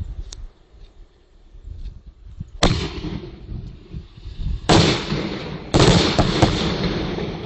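100 mm cylindrical aerial firework shell with report (salute) breaks bursting overhead. The loud bangs come about two and a half seconds in, then two more about two and three seconds after that, each followed by a long echo.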